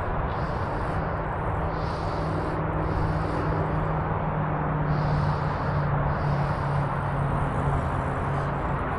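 Steady outdoor noise with the low hum of a motor vehicle engine, stronger in the middle of the stretch.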